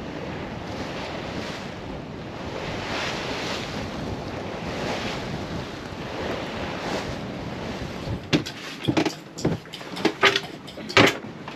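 Sea water rushing past the hull of a sailing yacht under way in an open-ocean swell, with wind, the rush swelling and easing every second or two. Near the end comes a quick, irregular run of sharp knocks.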